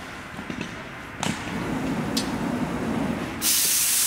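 A compressed-air blow gun comes on sharply about three and a half seconds in with a loud, steady hiss as it blows sawdust off the router table. Before it there is a low rumble with two sharp clicks.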